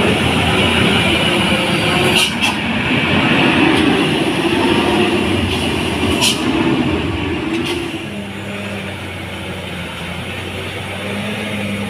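Diesel engine of a loaded Hino 500 truck running hard as it passes close by through a steep hairpin bend. About eight seconds in it drops to a quieter, steady engine hum.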